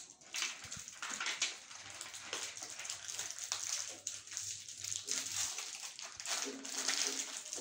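Plastic biscuit wrappers crinkling and tearing as two small packets are opened by hand, in an uneven run of short rustles and rips.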